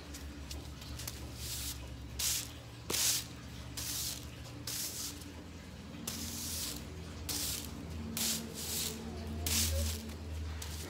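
A handmade broom of bundled stiff kepompon plant stems sweeping a bare concrete floor. It makes repeated scratchy swishes, roughly one a second.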